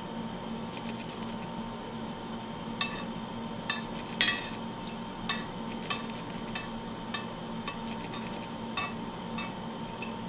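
A breadcrumbed tuna cutlet sizzling as it fries in hot oil in a cast-iron skillet. A metal spoon ladles oil over it, with a string of sharp clicks, the loudest about four seconds in.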